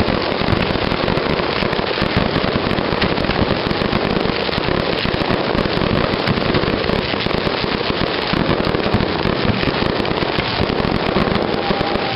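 Fireworks bursting in rapid succession: a loud, dense, unbroken crackling and popping of many small reports.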